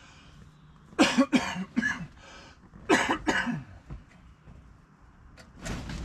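A man coughing: three coughs in quick succession about a second in, then two more about three seconds in.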